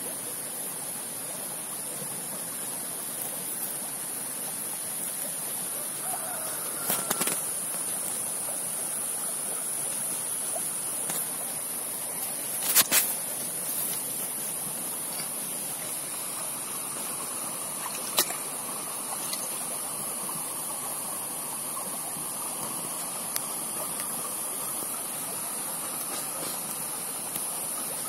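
Shallow forest stream trickling steadily over rocks, under a constant high hiss, with a few short sharp knocks and splashes as sandals are handled in the water; the loudest comes about halfway through.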